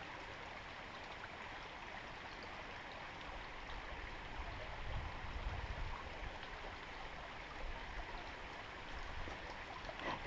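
Mountain stream water rushing and splashing over rocks, a steady even noise.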